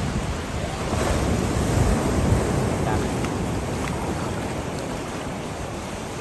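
Ocean surf washing up the beach, with wind buffeting the microphone as a low rumble.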